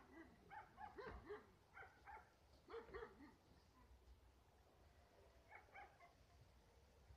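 Faint dog barking: short barks in quick clusters over the first three seconds, then a brief pair around six seconds in.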